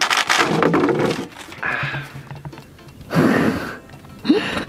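Background music with several loud bursts of noise over it, the longest at the start and another about three seconds in.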